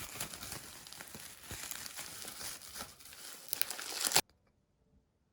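Crinkling and rustling with scattered small clicks, which stops abruptly about four seconds in.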